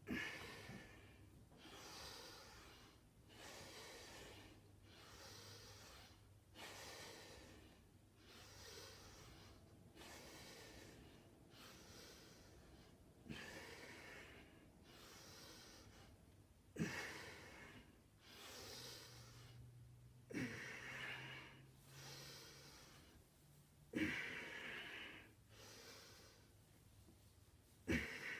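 A man breathing hard while doing push-ups, one breath with each repetition, in a steady rhythm of roughly one a second. A few sharper, louder exhalations come in the second half.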